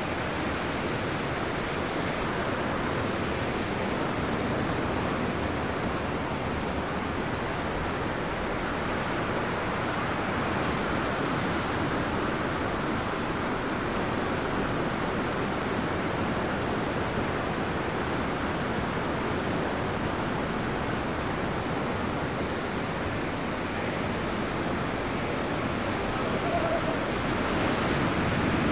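Steady wash of ocean surf, mixed with wind.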